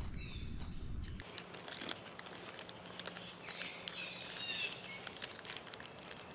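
Birds chirping faintly with scattered small clicks and crackles. A low rumble in the first second cuts off abruptly.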